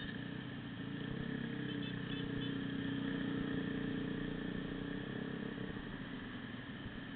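Engines of small motorcycles running steadily in a group ride, one engine hum swelling about a second in and easing off after about five seconds.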